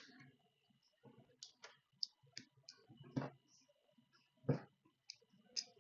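Small metal parts and tools being handled at a workbench while fitting brushless motors to a drone frame: scattered light clicks and taps, with two louder knocks about three and four and a half seconds in.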